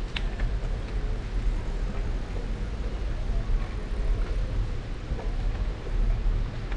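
Street ambience heard while riding a bicycle: a steady low rumble of wind and rolling, with a sharp click just after the start and faint voices in the background.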